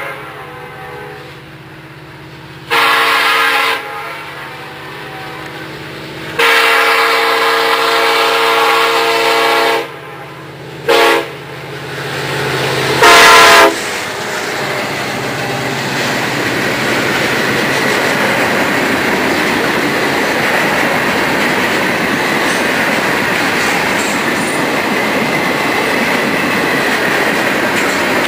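A diesel freight locomotive's air horn sounds as the train approaches: two long blasts, a short one, then a last long blast that is the loudest, just as the locomotives reach the listener. After that comes the steady rumble and wheel clatter of a long freight train rolling by.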